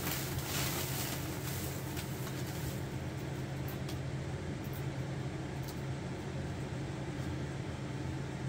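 Newspaper and a plastic bag rustling as glass pieces are unwrapped by hand, over a steady low hum. The rustling dies down after about three seconds, leaving a few light clicks.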